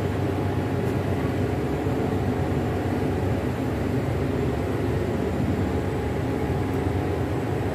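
Steady low mechanical drone inside an LHB Vistadome railway coach, even in level throughout, with a few faint steady tones above the rumble.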